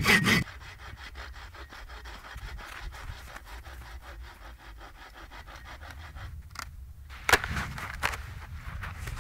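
Bow saw cutting through a dry, dead standing tree trunk for firewood, in quick, even strokes that are loud at first and then fainter. After a short pause, a sharp crack about seven seconds in and a few knocks follow as the cut trunk snaps off.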